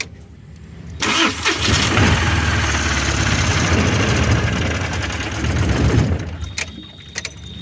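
Mahindra Supro van's common-rail diesel engine cranking and starting about a second in, running loudly for several seconds, then dropping to a lower, steadier level near the end. The engine now starts after a faulty rail pressure sensor was found as the cause of the no-start.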